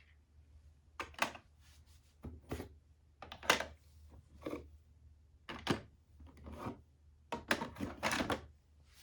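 Die-cast toy cars clattering: a string of irregular clicks and light knocks, about one or two a second, as small metal-and-plastic minicars are handled and knock against each other and cardboard. No siren sound is heard.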